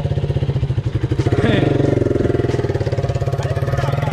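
Hero XPulse dual-sport motorcycle's single-cylinder engine running close by with a rapid, even pulse, swelling a little around the middle.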